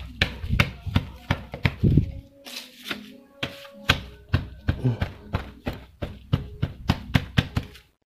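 Hands pressing and patting a sneaker's freshly glued sole against its upper: a quick, irregular run of taps and soft thumps, pressing the glue joint so it sticks.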